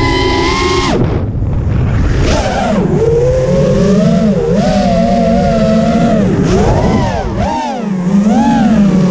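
Racing quadcopter's electric motors and propellers whining, the pitch rising and falling constantly with the throttle, cutting out briefly about a second in. Wind rumble on the onboard camera's microphone runs underneath.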